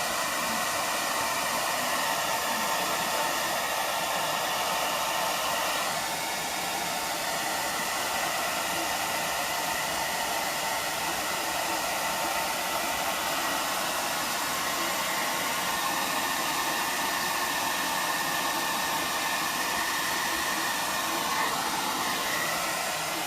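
Hair dryer running steadily: a constant rush of air with faint whining tones over it, changing slightly in tone about six seconds in.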